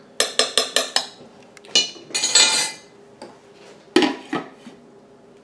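A metal serving spoon tapped about five times in quick succession against the slow cooker crock, then a clattering scrape. About four seconds in, the glass lid is set down on the crock with a clunk and a few smaller knocks.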